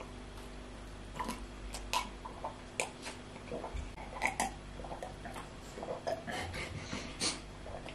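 Faint sipping and swallowing of water from drinking glasses, with scattered small clicks and mouth sounds.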